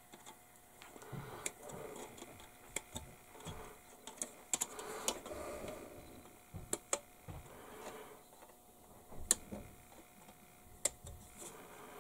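A plastic model-kit sprue frame being handled and moved about on a cutting mat, giving faint, scattered light clicks and taps with soft plastic rustling.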